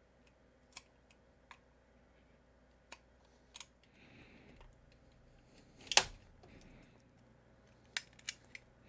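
Scattered small clicks and scrapes of a utility knife trimming a cut notch in a plastic kite winder, with one sharp clack about six seconds in, the loudest sound, and three quick clicks near the end as needle-nose pliers work the plastic.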